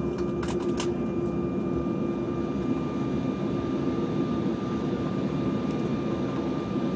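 Cabin noise inside an Embraer 190 rolling along the runway just after landing: a steady rumble with a held hum from its General Electric CF34 turbofans. A couple of brief clicks about half a second in.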